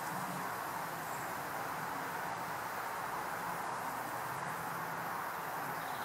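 Steady, even hiss of outdoor background noise, with a faint low hum under it and a brief faint high chirp about a second in.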